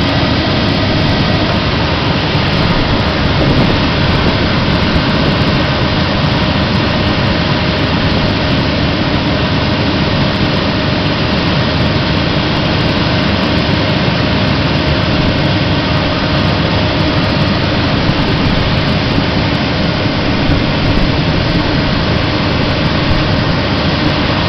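Industrial vacuum running steadily while its hose sucks up steel grit abrasive: a loud, even rushing noise with a faint steady hum.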